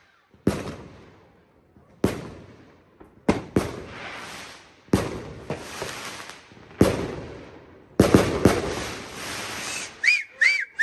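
Fireworks going off: sharp bangs every second or two, each trailing off in crackle and echo, with a quick flurry of several bangs about eight seconds in.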